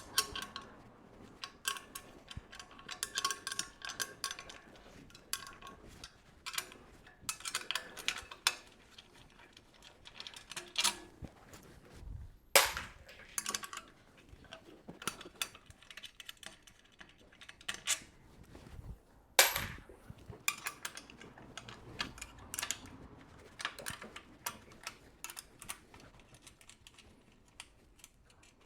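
Small metal clicks and clinks of spanners working on the nuts and bolts of a bed frame's top bars, with two sharp knocks about twelve and nineteen seconds in.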